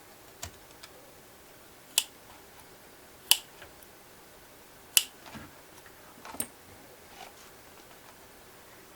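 Sharp clicks and taps from hands and tools at work on a leather long wallet: five distinct clicks about a second and a half apart, with a few fainter ticks between.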